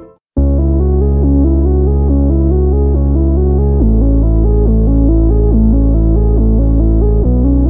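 Electronic background music starting suddenly after a moment of silence: a repeating synthesizer arpeggio over long held bass notes that change twice.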